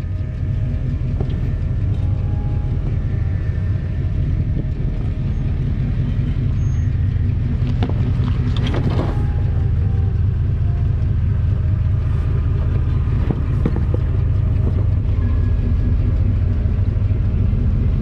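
2001 GMC Sierra 2500HD pickup crawling over a rough, rocky jeep trail: a steady low rumble of engine and drivetrain, with creaks and knocks from the body and suspension, the loudest cluster about halfway through.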